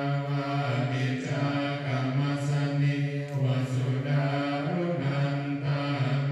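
Buddhist chanting: low voices held on nearly one note, with brief breaks between phrases.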